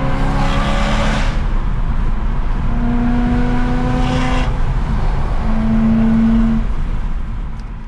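Tuned BMW F90 M5's twin-turbo V8 running hard, loud and continuous, with a steady engine note that holds in three stretches. The sound fades away near the end.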